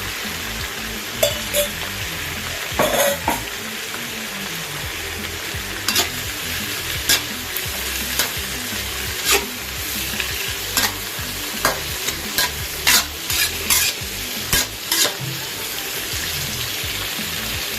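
Pumpkin and pak choy stir-frying with garlic and anchovies in a hot pan, sizzling steadily. A spatula stirs, knocking and scraping against the pan at irregular moments, about once a second.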